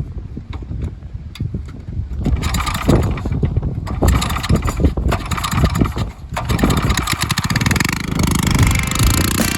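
Single-cylinder engine of a modified mini bike running, quieter at first, then revved hard about two seconds in and pulling with repeated rises and falls in engine speed.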